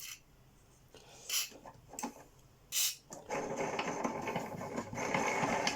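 Aerosol spray oil hissing in three short squirts onto the vacuum cleaner's wheels, about a second and a half apart. About three seconds in, a steady rough rattling whir follows and runs on: the freshly oiled wheels turning.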